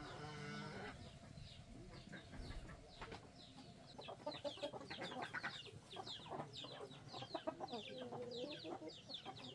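Chickens clucking and calling, with a dense run of short, high, falling peeps from about four seconds in.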